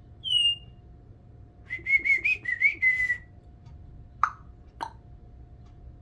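Congo African grey parrot whistling: a short falling whistle, then about a second later a run of quick warbling whistled notes lasting about a second and a half, followed by two short clicks.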